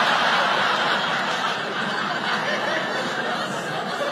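A theatre audience laughing together after a punchline: a crowd roar of laughter, loudest at first and slowly dying down.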